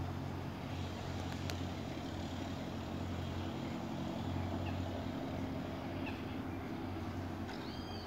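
Steady low rumble of distant road traffic, with a short bird call near the end.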